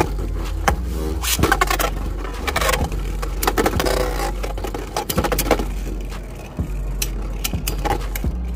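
Beyblade Burst spinning tops whirring and grinding in a plastic stadium, with many sharp clacks as they collide.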